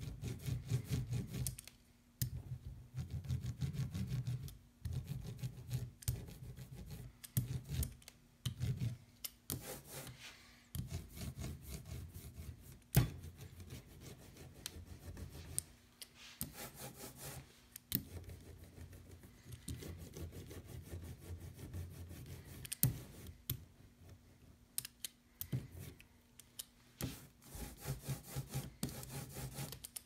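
Rubber ink brayer rolled through printing ink in repeated back-and-forth passes, each a second or two long, with scattered sharp clicks.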